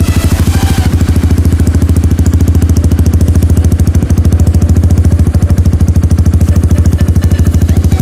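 Honda CRF150L's single-cylinder four-stroke engine idling steadily through a Radamel Racing 'Over' type aftermarket exhaust, an even pulsing beat.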